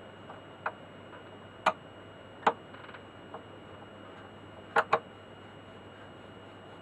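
Sharp clicks and taps of hard parts, a screwdriver and fixing against the record player's cabinet, as a screw is worked back into place. About six separate clicks, irregularly spaced, with a quick double click about five seconds in.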